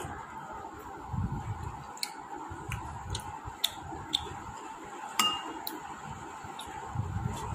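Spoons tapping and scraping against porridge bowls while eating: a scattered series of light clicks, with one louder, briefly ringing clink about five seconds in.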